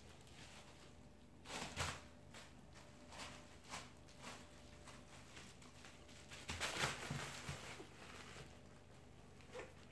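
Plastic packaging crinkling and rustling in short, scattered bursts as a cat and kitten play in it, with a longer flurry of crinkling about two-thirds of the way through.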